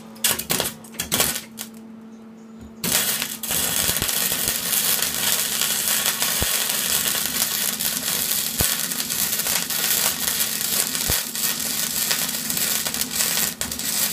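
Wire-feed (MIG) welding arc. A few short crackling bursts come as the arc is struck and stopped, then about three seconds in it settles into one continuous, loud crackling sizzle that runs on as a long weld is laid.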